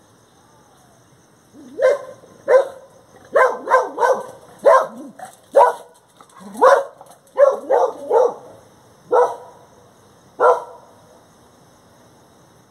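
A dog barking about fifteen times in irregular short volleys, starting about two seconds in and stopping a couple of seconds before the end.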